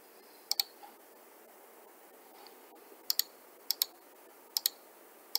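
Computer mouse button clicks, each a quick press-and-release pair, about five times: once near the start, then four more spread through the second half.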